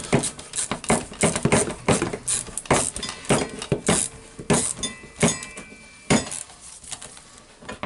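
Ratchet wrench clicking in quick irregular bursts, with metal clinks of the socket, as a stiff nut is slowly worked loose. A short metallic ring comes about five seconds in.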